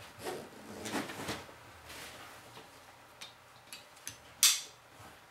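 Hunting backpack being handled as its straps are cinched and buckled: fabric and webbing rustling, a few light clicks, then a sharper clack about four and a half seconds in.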